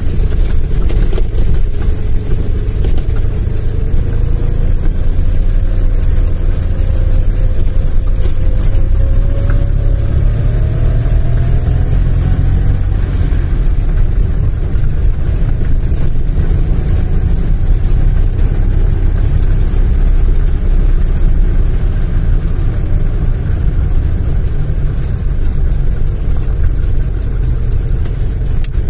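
Car engine and road noise heard from inside the cabin while driving: a loud, steady low rumble. About a quarter of the way in, an engine note climbs in pitch for several seconds as the car speeds up.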